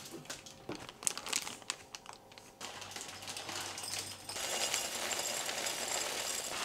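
Plastic bag of rolled oats crinkling as it is handled, then dry old-fashioned rolled oats pouring into a glass jar as a steady rattling hiss through the last couple of seconds.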